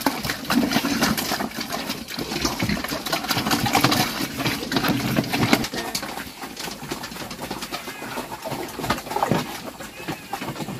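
Pigs grunting over many small clicking noises, likely pigs feeding on bran mash; the grunting is strongest for about the first six seconds, then quieter.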